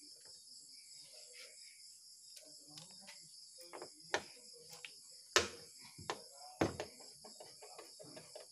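Crickets chirping steadily. Over them come several sharp metallic clicks and knocks from hand tools and fasteners as a van's front panel is unfastened, the loudest about five and a half seconds in.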